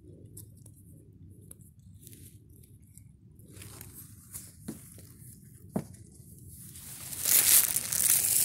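Dry grass rustling and crackling, with a few sharp clicks in the middle. Near the end the grass brushes right against the microphone, making a loud scratchy rustle.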